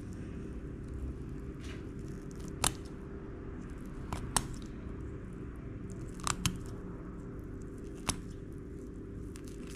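A blade cutting through a jack mackerel's rib bones around the belly: about seven sharp cracks at irregular intervals.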